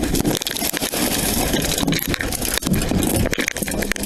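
Handling noise from a police body-worn camera: its microphone rubbing and knocking against clothing as the wearer moves, with many irregular clicks over a continuous rushing noise.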